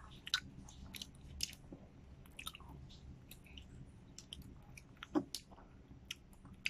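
Close-miked chewing of grapes: faint, irregular wet mouth clicks and squishes, with a few sharper ones about five seconds in.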